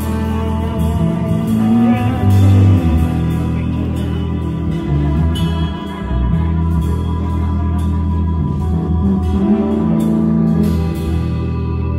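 A live band playing a song: a drum kit with cymbals, an electric guitar, a bass guitar and a keyboard together in a steady groove.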